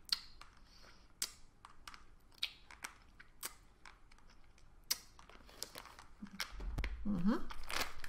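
Hard candy being sucked and moved around in the mouth: scattered sharp clicks and small crunches as it knocks against the teeth, with a couple of short hummed sounds near the end.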